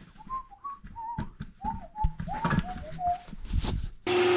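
A person whistling a tune of short, wavering notes, with a few light knocks of handling. Near the end an electric power tool suddenly starts up and runs loud and steady.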